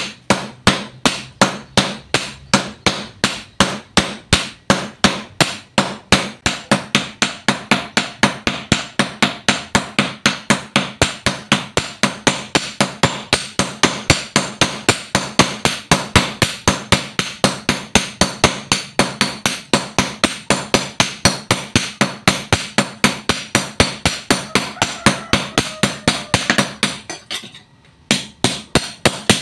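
Team hand-forging: several hammers striking a red-hot steel blade on an anvil in turn, a steady rhythm of about three sharp blows a second. The blows break off briefly near the end, then resume.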